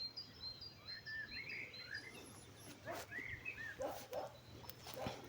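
Songbirds singing faintly in a spring forest: thin, high repeated whistled notes with warbling chirps lower down. A few short rustles come in during the second half.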